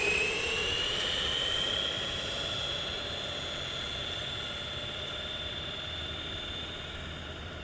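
Redcat Volcano EPX RC truck's brushed electric motor and drivetrain whining at full throttle, the pitch climbing a little more over the first two seconds and then holding steady at top speed. The whine slowly fades as the truck drives away.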